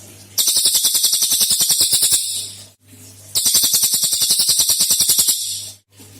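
Cililin songbird singing its rapid-fire 'tembakan' song: two runs of fast-repeated high notes, about ten a second, each lasting about two seconds, with a short burst at the very end.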